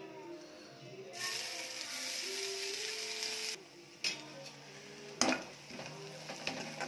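Ground onion, ginger, garlic and green-chilli paste going into hot oil in a kadhai: a loud sizzle starts about a second in and cuts off after a couple of seconds. Then a spoon clinks against the pan a few times as the paste is stirred and fried.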